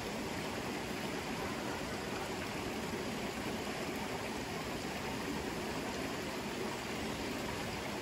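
River water flowing: a steady, even rush with no breaks or changes.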